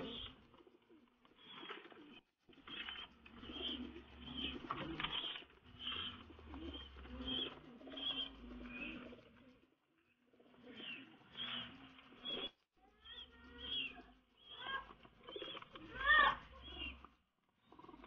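Homing pigeons cooing repeatedly, in bouts separated by short pauses.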